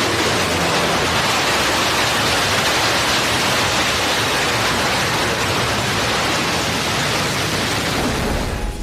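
Blue Origin rocket engine at liftoff: a loud, steady, rushing roar that eases off shortly before the end.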